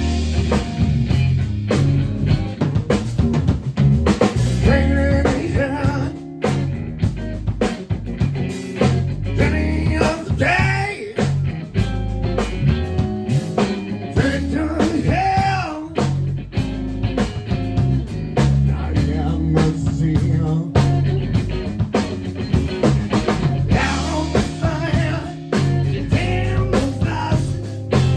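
Live rock band playing: electric guitar, electric bass and drum kit with a steady beat, and a man singing lead into the microphone.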